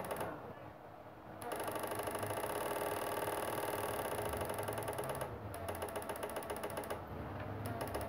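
Homemade electric-fishing inverter buzzing under load while it drives a halogen tube lamp, a dense high buzz in rapid even pulses. It cuts out for about a second near the start, while the lamp is dark, and briefly twice more in the second half.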